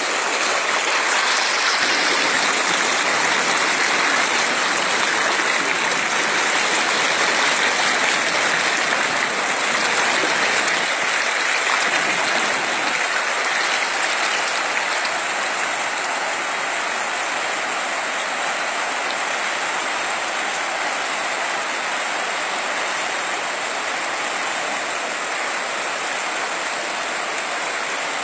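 Muddy floodwater rushing fast along a road: a steady, loud rush of water that eases a little about halfway through.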